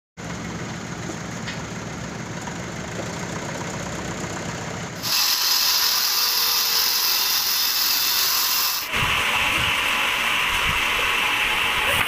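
Crane engine running with a low drone while it lifts a teak log. About five seconds in, an abrupt cut brings a loud, steady, high hiss, which drops lower in pitch after another cut about nine seconds in.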